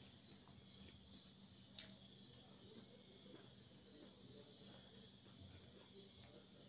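Near silence: faint, steady high-pitched chirring of crickets, pulsing evenly, over a low steady hum.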